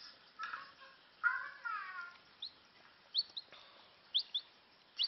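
A young chicken chick peeping: short, high cheeps, about half a dozen spaced through the second half. A little over a second in there is a louder, brief falling vocal sound.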